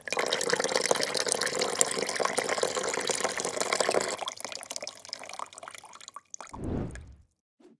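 Milk poured in a stream through a plastic tea strainer into a glass tumbler, splashing as the glass fills. The stream thins to a trickle after about four seconds and dies away, followed by a short low burst near the end.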